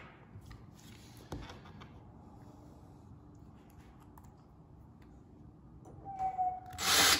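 Cordless drill-driver briefly spins up with a short whine near the end, then drives a stubby screw through a metal drawer bracket into a drawer front, which is the loudest sound. Before that there is only quiet handling with one light knock.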